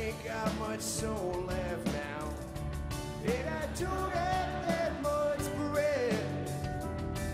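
A man singing a slow, gliding melody into the microphone, with a guitar strummed steadily underneath.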